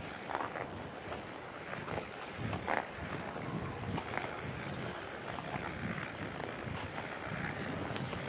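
Figure skate blades gliding and carving on rink ice: a steady hiss with short scraping strokes now and then and a few sharp ticks.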